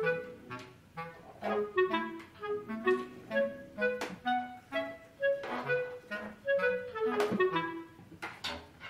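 Background music: a melody of short, stepping woodwind notes, clarinet-like, over a light rhythmic accompaniment.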